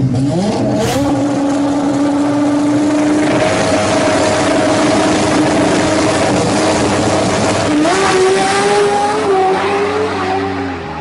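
Toyota Supra drag car's engine revving up and held at steady high revs on the start line, then rising sharply in pitch about eight seconds in as the car launches down the strip, and dropping away near the end as it pulls off.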